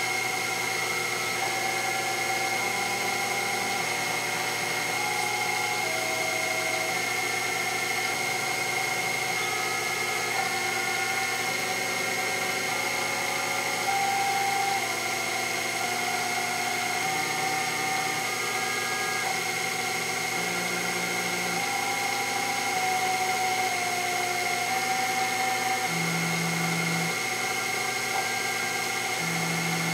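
Sherline CNC mill machining a Delrin rod on its fourth-axis rotary table: the machine runs with a steady high whine, while the axis stepper motors sing in short tones that jump to a new pitch every second or so as the feed moves.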